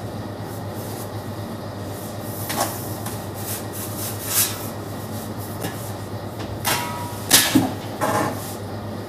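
Steady low mechanical hum of kitchen equipment, with about five short knocks and scrapes of things being handled, the loudest close together near the end.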